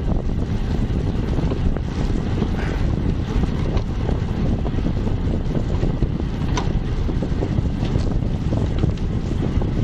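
Wind buffeting the microphone of a bike-mounted Cycliq camera on a bicycle moving at about 25 to 30 km/h, making a steady low rumble, with a few faint short ticks.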